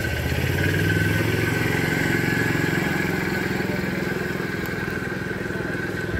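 A vehicle's engine running close by with a low, even pulsing beat, getting louder about a second in and then slowly fading as it moves past.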